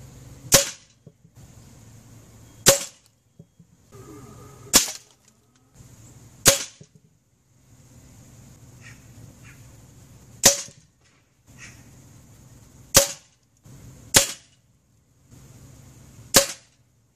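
Weihrauch HW100 pre-charged pneumatic air rifle firing JSB Heavy pellets at a playing card, eight sharp shots about one to four seconds apart.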